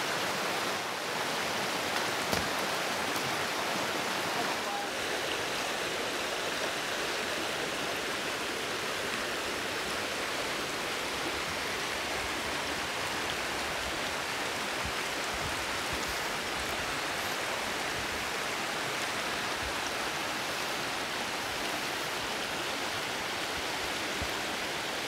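Steady rushing background noise, with a few faint clicks in the first few seconds.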